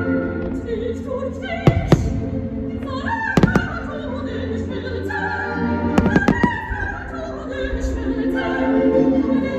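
Operatic singing with orchestral music, cut by fireworks shells bursting with sharp bangs: two about two seconds in, a cluster about three and a half seconds in, and several more about six seconds in.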